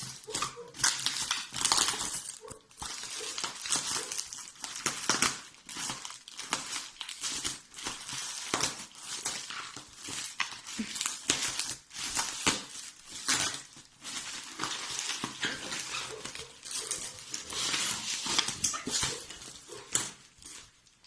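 Packaging rustling and crinkling while ceramic cookware is unpacked, with irregular knocks and clinks of the dishes being handled.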